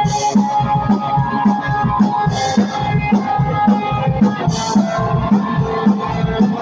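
Live rock band playing an instrumental passage with no singing: a drum kit keeps a steady beat, with cymbal crashes every couple of seconds, under sustained guitar notes.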